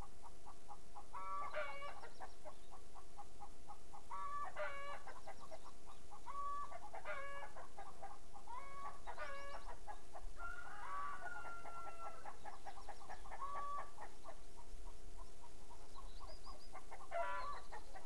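Bird calls repeating about every two seconds, each a short pitched note with a rapid stuttering patter between the calls; near the middle one call is a longer falling, then level whistle.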